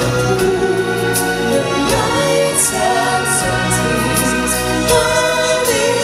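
Live stage-show music: voices singing together over instrumental backing with a steady bass, and short cymbal- or shaker-like strokes.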